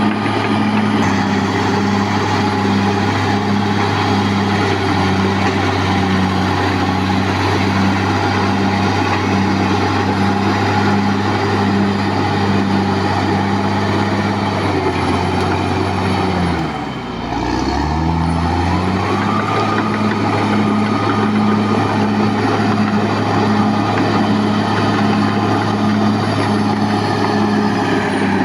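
Caterpillar D6R XL bulldozer's diesel engine running steadily under power. A little past halfway the engine note drops sharply for a second or two, then climbs back to its working speed.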